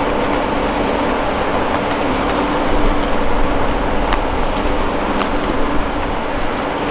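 Steady outdoor roadside noise: a continuous rushing hiss with a steady low hum and a few faint ticks.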